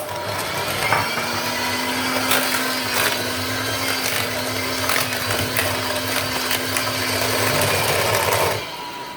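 Electric hand mixer running steadily, beating eggs into creamed butter and sugar for cake batter, with the beaters knocking against the bowl now and then; it switches off about eight and a half seconds in.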